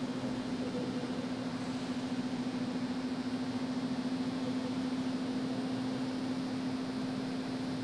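Steady hum with a constant low tone over an even hiss: the ambience of a large mosque hall picked up through its sound system during a silent prostration.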